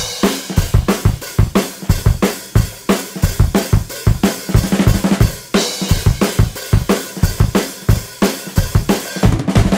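Background music carried by a steady rock drum-kit beat: bass drum, snare and cymbals striking in an even rhythm.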